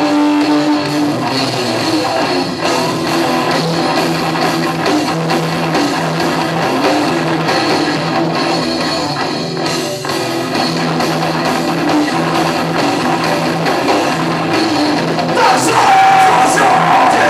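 Live rock band playing loud, with distorted electric guitars and drum kit; a strong held high note comes in near the end.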